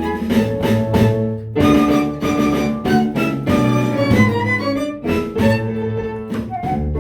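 Instrumental ensemble music: sustained melody notes over a moving bass line, with a brief break about one and a half seconds in.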